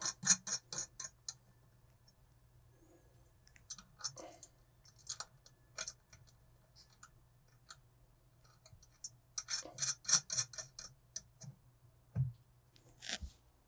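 Small metal nuts clicking and ticking against a stereo mounting bracket and its bolts as they are threaded on by hand. The clicks come in quick runs near the start and again about two-thirds through, with scattered single ticks between.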